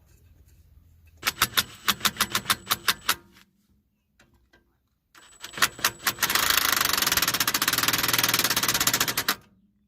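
Rapid mechanical clicking. A run of sharp clicks comes about six a second, then after a pause the clicks speed up into a continuous fast rattle lasting about three seconds, which stops suddenly near the end.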